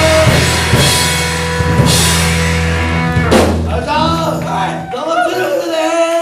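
Live rock band with drum kit and distorted guitars holding a chord under crashing cymbals; the bass and guitars cut off about four seconds in, leaving voices.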